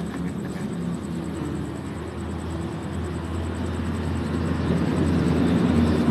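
A heavy machine's engine running with a steady low hum, growing louder toward the end.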